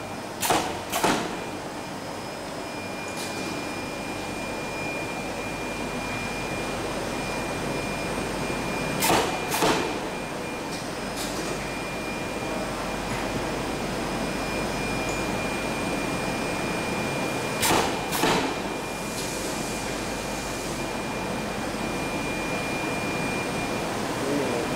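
Pneumatic sheet cutter on a butyl rubber sheet production line, cycling three times with a pair of short, sharp strokes about half a second apart, roughly every eight and a half seconds. Under it the line runs with a steady machine hum and a faint high whine.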